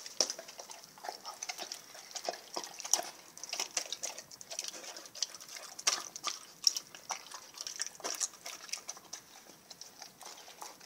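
A Rottweiler eating raw turkey heart and liver: wet, irregular chewing, licking and smacking sounds, a steady run of short clicks.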